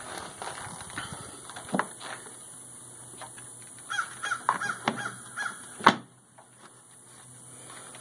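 A crow cawing several times in quick succession, about three or four caws a second, from about four seconds in. A click near two seconds in and a sharp knock just before six seconds, the loudest sound, come from the tractor's plastic coolant overflow tank and parts being handled as it is fitted back in place.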